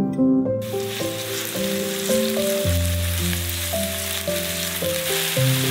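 Diced onion sizzling as it starts to fry in hot oil in a nonstick frying pan; the sizzle starts suddenly about half a second in and then runs on evenly. Background music with a melody plays throughout.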